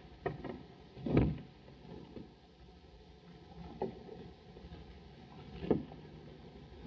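Several dull knocks and thumps, the loudest about a second in, over the steady hiss of an early sound-film soundtrack.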